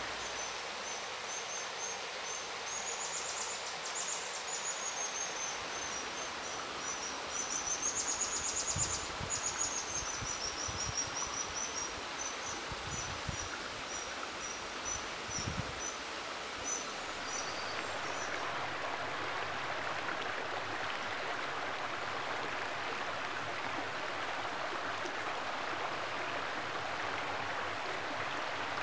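Juvenile white-throated dippers giving a rapid series of thin, high-pitched begging calls over the steady rush of a fast stream. The calls stop a little over halfway through, leaving only the even rush of water.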